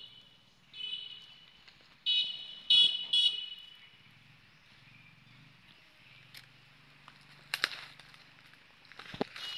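High-pitched squealing calls from a macaque, in a few short bursts in the first three and a half seconds, loudest around three seconds in. Two sharp knocks come near the end.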